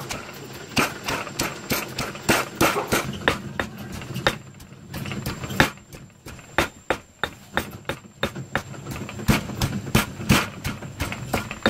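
Stone pestle pounding in a stone mortar, crushing peanuts into a yellow spice paste: a run of irregular knocks, about three a second, thinning out briefly a couple of times.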